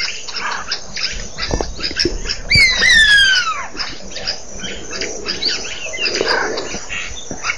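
Lizard buzzard calling: one loud whistle that slides steadily downward in pitch, about two and a half seconds in, over a busy background of short chattering calls.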